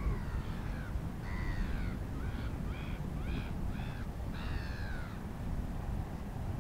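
Gull calling: a long falling call, then a run of short yelping notes, then another long falling call about five seconds in, over a steady low rumble.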